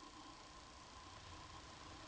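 Near silence: the quiet pause between two snores of a sleeping pug, with only faint room tone.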